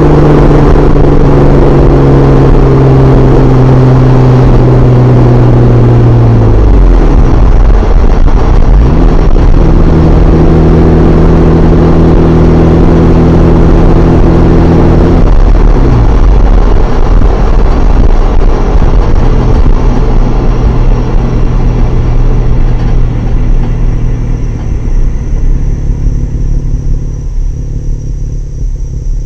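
Exhaust note of a Jeep Wrangler JKU's 3.6 L Pentastar V6 through an aFe 3-inch cat-back exhaust. It holds a steady drone that drops away about six seconds in and again about fifteen seconds in, settles at a lower note, and fades near the end.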